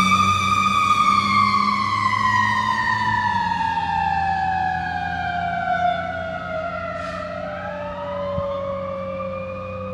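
Fire truck siren in one long wail that peaks about a second in and then winds slowly down in pitch, fading as the truck drives away. About three-quarters of the way through, a second siren begins rising beneath it, over a low steady hum.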